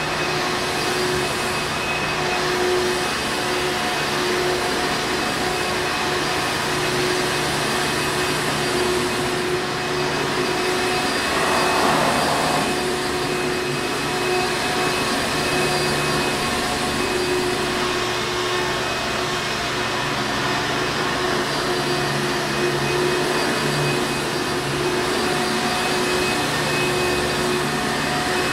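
Hoover Encore Supreme vacuum cleaner running steadily: an even rush of air over a steady motor hum, with a brief swell in the noise about twelve seconds in.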